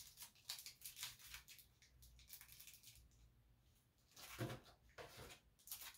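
Faint crinkling and ticking of small plant tags in clear plastic packaging being handled and sorted. A quick string of ticks comes in the first second and a half, and there are two louder handling noises near the end.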